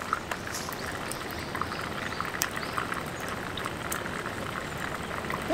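Wood fire crackling in a small campfire brazier: scattered sharp pops and snaps over a steady background hiss.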